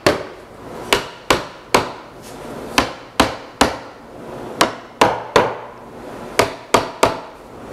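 Sharp knocks on wood, about a dozen in groups of two or three, as the glued tenons of a wooden chair's legs are tapped home into their mortises.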